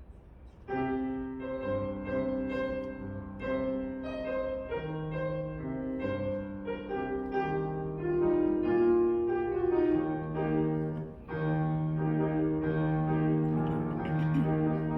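Piano playing a melody over lower held notes, starting about a second in.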